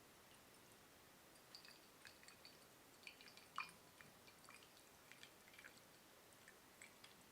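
Faint, scattered small clicks, ticks and light taps from tea-brewing handling, starting about a second and a half in; about halfway through comes one sharper light tap with a brief ring after it.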